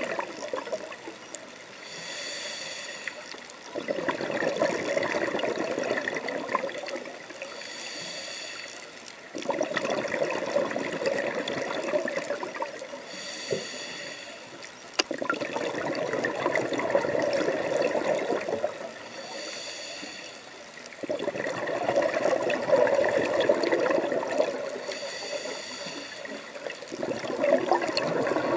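Scuba diver breathing through a regulator underwater: a short hissing inhale about every five to six seconds, five times in all, each followed by several seconds of exhaled bubbles.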